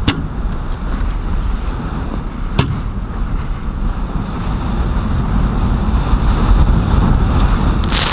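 Strong wind buffeting the microphone and storm waves splashing around a small motorboat running through heavy chop, with two sharp knocks of the hull hitting waves about two and a half seconds apart. The noise builds through the second half, and near the end a burst of spray splashes over the bow onto the microphone.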